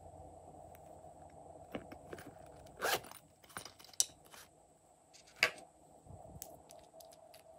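A small plastic toy handbag being handled and opened: a short zip of its zipper about three seconds in, then sharp plastic clicks, over a faint steady hum.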